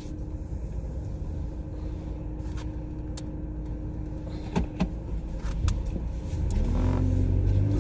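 Car engine running, heard from inside the cabin as a steady low hum, with a few sharp clicks midway. Near the end the engine note rises and grows louder as the car pulls away.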